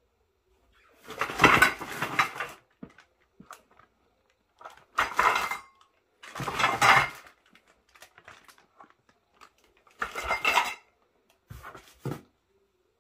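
Packaging inside a cardboard box rustling and scraping as the contents are handled, in five separate bursts with quiet gaps between.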